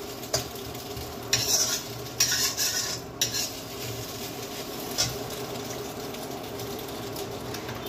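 Metal spatula scraping and stirring in a kadhai (Indian wok) over a steady sizzle of food frying. There are several scrapes in the first three seconds and one sharp knock about five seconds in, then only the sizzle.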